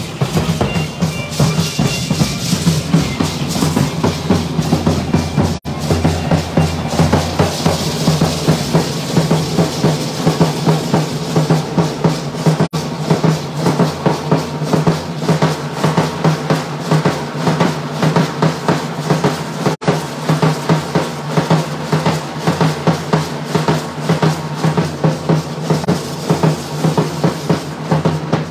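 Drums of a Mexican danza group beating a steady, fast dance rhythm, about two beats a second. The sound cuts out briefly three times.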